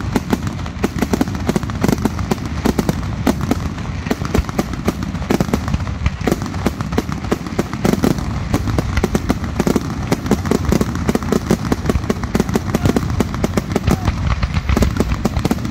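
Fireworks going off in a rapid, unbroken barrage of sharp bangs and crackles, many reports a second, as aerial bursts fire in quick succession.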